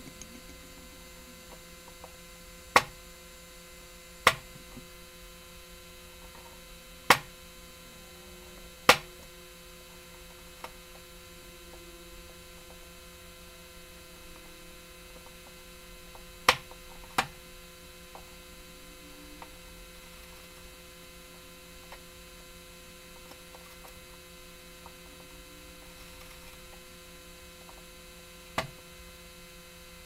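A hand gouge chopping down into walnut to cut the recess for a keyhole escutcheon: about seven sharp, short clicks at irregular intervals, four close together in the first nine seconds, a quick pair about halfway through and one near the end. A steady electrical hum runs underneath.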